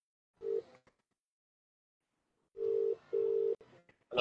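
Telephone ringback tone: a steady low beep at about 400 Hz, a short one near the start, then a pair of beeps close together about two and a half seconds in. There is a brief louder sound at the very end.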